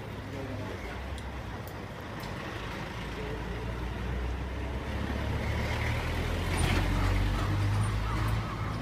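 A heavy road vehicle's engine rumbling as it draws closer, growing louder and loudest about seven seconds in. A steady high whine joins it near the end.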